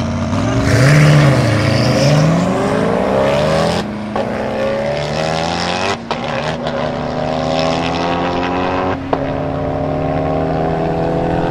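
Koenigsegg Agera and Regera launching side by side from a standing start and accelerating hard at full throttle. The engine note climbs in pitch in long sweeps, loudest just after the launch, broken by brief cuts at the Agera's upshifts about four, six and nine seconds in.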